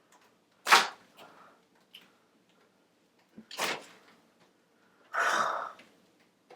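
A person puffing out breath three times: a sharp puff about a second in, another near the middle, and a longer exhale near the end.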